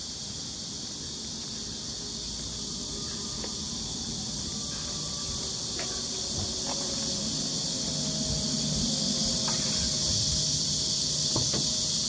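Cicadas in a steady high-pitched chorus that grows gradually louder.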